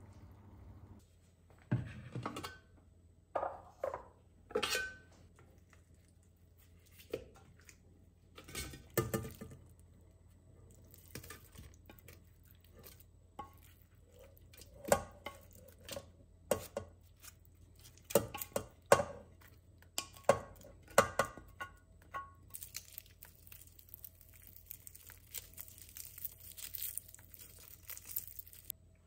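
Dishes and cutlery clinking and knocking as they are handled and set down, a series of separate clinks, some ringing briefly; about three-quarters of the way in a steady hiss takes over for several seconds and stops shortly before the end.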